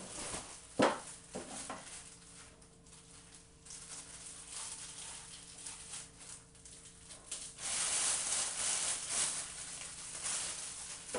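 Unboxing handling noise: one sharp click about a second in, then light rustling, and a louder stretch of plastic packaging crinkling in the last few seconds.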